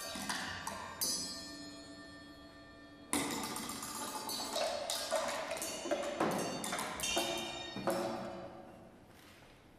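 Free-improvised solo on a drum kit: sticks striking cymbals and drums, with ringing metallic tones. A strike about a second in rings and fades, then a dense run of hits starts about three seconds in and dies away near the end.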